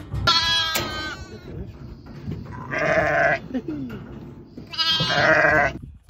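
Newly caught two-day-old lambs bleating three times, loud and close: a short high call, then two longer ones about two seconds apart.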